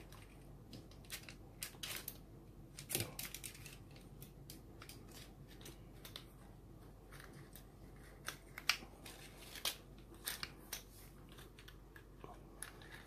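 Scattered clicks and light knocks of a plastic Mollar belt sander attachment being handled and fitted to an angle grinder, with a fuller knock about three seconds in and the sharpest click about two-thirds of the way through.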